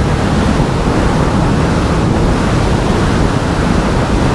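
Steady, loud rush of wind buffeting the camera microphone while riding an electric motorbike at speed on mode 3, covering any motor or tyre sound.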